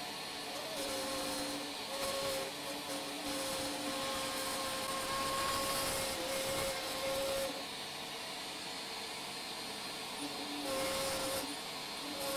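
Small electric motor of a homemade micro router running with a steady whine while its bit mills letters into a chipboard sheet; a cutting hiss grows and fades as the tool is moved along the strokes.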